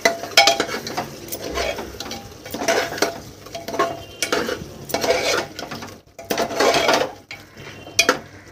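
A steel spoon scrapes and stirs mutton and masala against the sides and bottom of an aluminium pressure cooker in uneven strokes, roughly one a second. The meat is being sautéed in its spices, with a light sizzle under the scraping.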